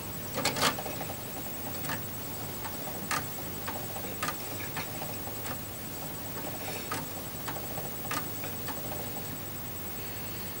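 A DVD player's disc tray opening and closing: irregular sharp mechanical clicks and taps, loudest in a cluster about half a second in, over a faint steady hum.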